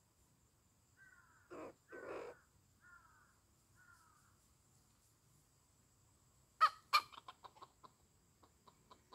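Chickens clucking: two short clucks about one and a half seconds in and a few soft, falling calls, then about six and a half seconds in two sharp, loud calls followed by a fast run of short clucks.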